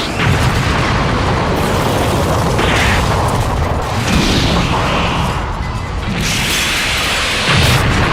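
Dragon Ball–style anime fight sound effects: a continuous barrage of booming impacts, blasts and whooshes, with several louder surges.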